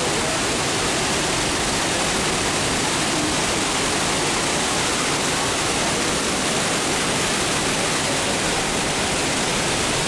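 The Manavgat waterfall: river water pouring over rock ledges and churning below, a steady, unbroken rush of water.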